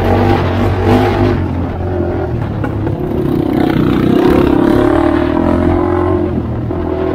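Honda 400EX quad's single-cylinder four-stroke engine running under way, its pitch rising and falling as the throttle is worked.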